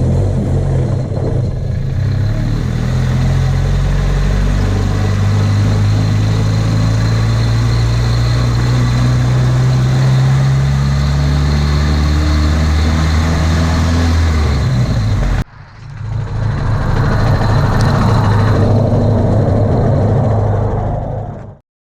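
Dodge Neon SRT-4's turbocharged 2.4-litre four-cylinder running under light throttle, kept out of boost, its note rising and falling gently, with a faint steady high whine above it. The sound breaks off about fifteen seconds in, comes back, then stops suddenly near the end.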